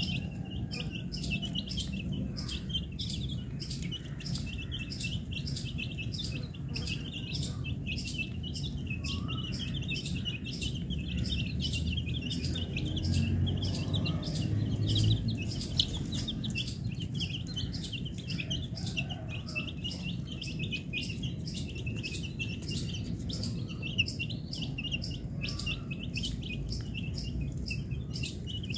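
A flock of domestic chicks peeping continuously, many short high peeps overlapping at several a second, over a low rumble that swells briefly about halfway through.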